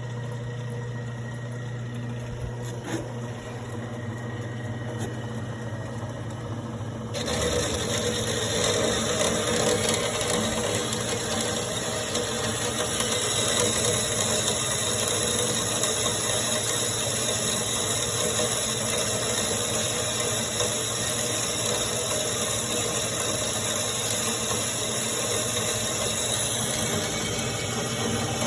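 A 4x6 horizontal metal-cutting bandsaw running with a steady motor hum. About seven seconds in, the blade starts cutting the stock, and a steady, louder cutting noise holds from then on.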